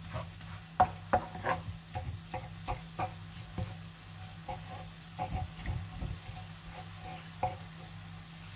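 Wooden spatula stirring ground meat as it fries in a ceramic nonstick pan: irregular scrapes and taps against the pan. The strokes come thickest in the first four seconds and thin out toward the end.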